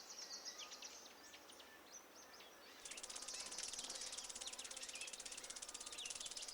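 Faint bird chirps, then about three seconds in a cicada starts up its rapid, pulsing buzz.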